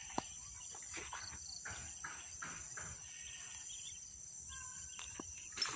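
A steady, high-pitched chorus of chirping insects, with a few faint clicks and one sharp click near the end.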